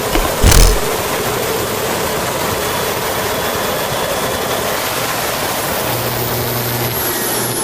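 Aircraft auxiliary power unit (small gas turbine) running loud and steady, with a sharp thump about half a second in. Near the end a high whine starts falling in pitch and a low hum comes in.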